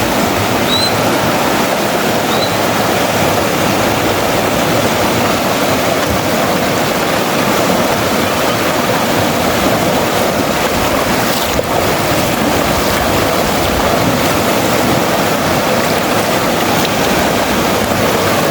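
Steady rushing of river water, with two brief high chirps in the first few seconds.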